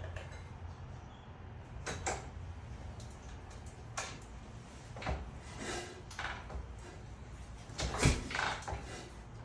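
A few separate knocks and clunks of things being handled, the loudest near the end, over a low steady hum.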